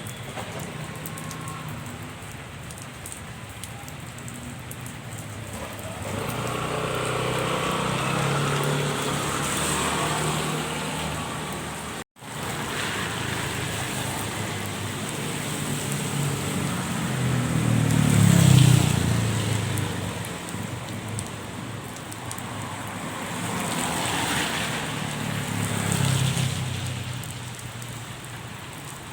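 Steady rain with road traffic. Vehicles pass one after another, each swelling and fading away, the loudest a little past the middle.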